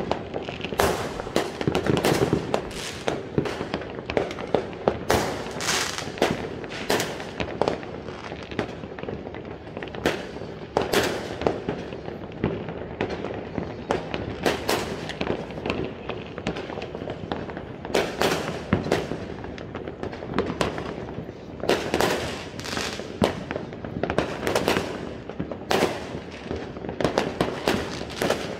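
Many fireworks and firecrackers going off at once: an irregular, near-continuous run of sharp bangs and pops, often several within a second, over a steady din of more distant blasts.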